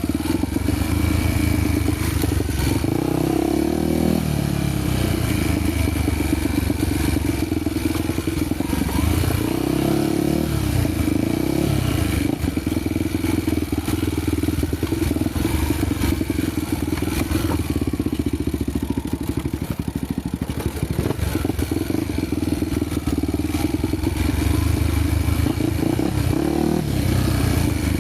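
Honda XR250 Tornado's single-cylinder four-stroke engine running while riding, its engine speed dropping and picking up again a few times: about three seconds in, around ten seconds in, and near the end.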